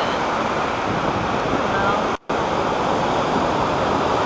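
Loud, steady rushing noise, with faint voices underneath. It cuts out for a split second about two seconds in, then resumes.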